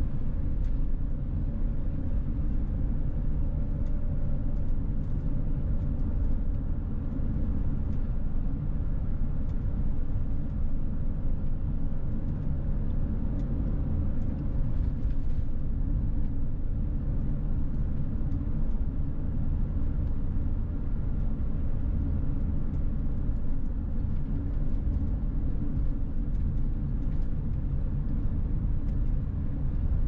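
A van driving at highway speed, heard from inside the cabin: a steady low rumble of road and engine noise.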